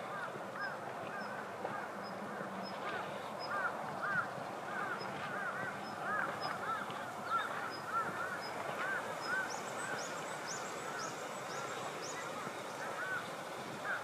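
Many birds calling over one another: repeated short arching calls, with a higher, fainter ticking call and a quick run of rising high whistles about ten seconds in.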